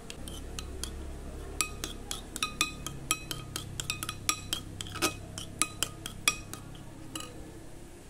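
Metal spoon stirring sauce in an amber glass bowl, striking the glass in a quick, irregular run of ringing clinks that starts about a second and a half in and stops near the end.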